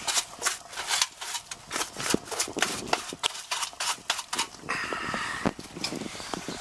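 Stiff brush scrubbing the sheet-metal base pan of an air-conditioning condensing unit, in quick, repeated scratchy strokes, several a second.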